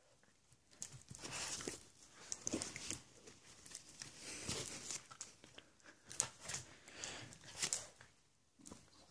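Scuffling and rustling of rough hand play with a miniature pinscher on a shag carpet, in irregular noisy bursts with a few sharp clicks, the phone being jostled.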